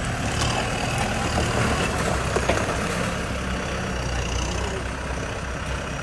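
Heavy diesel engine of a construction machine running steadily, with a few light knocks over it.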